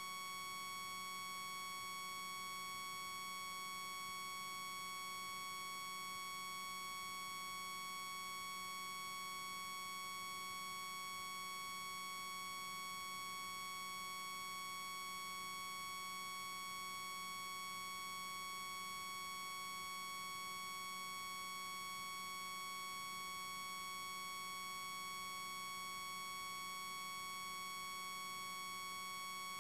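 A steady, unchanging high-pitched electronic whine with overtones, a noise on the recording rather than anything in the park.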